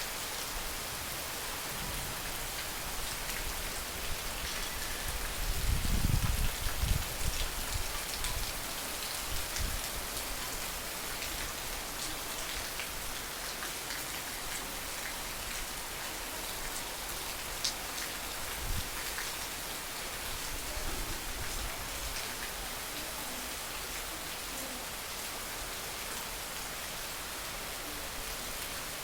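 Heavy rain falling steadily, an even hiss with scattered sharper drop hits, and a brief louder low rumble about six seconds in.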